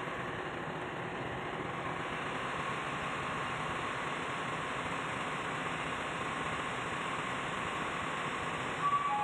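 Steady, even rushing noise of exhaust gas economizer cleaning work inside the ship's machinery space. Chime-like music starts near the end.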